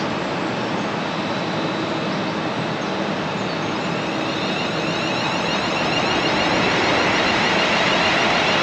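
Train passing through a station at speed: a steady rushing noise from the wheels and rails that grows louder over the last few seconds.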